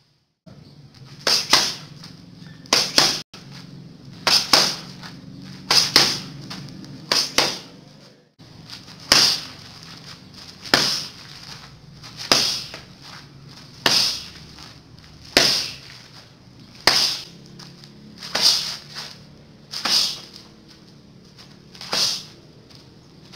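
Open-palm hook strikes smacking a hand-held focus mitt, one sharp slap about every second and a half, some fifteen in all.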